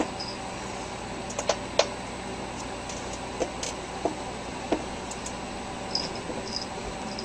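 Steady hiss and hum of room noise with scattered light clicks and ticks: a few close together early on, then single ones every second or so, and small high chirps near the end.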